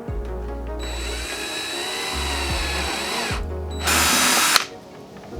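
Power drill with a step drill bit boring a hole through the plastic bumper cover: the drill whirs for about two and a half seconds, then a louder, harsher burst of about a second comes near the end. Background music with a low beat plays underneath.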